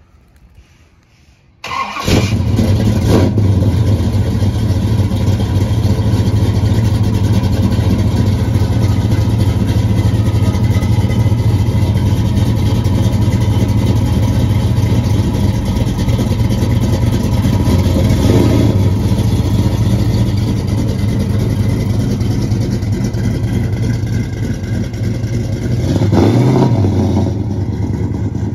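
A 1969 Plymouth Road Runner's V8 starting about two seconds in, catching at once, then idling steadily. It is briefly revved near the middle and again near the end.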